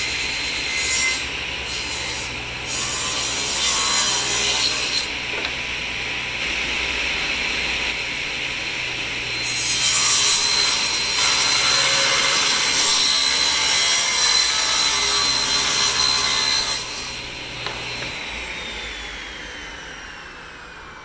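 Table saw running and cutting a glued-up hardwood panel, the noise rising during each pass through the blade. About 18 seconds in the saw is switched off and the blade winds down with a falling whine.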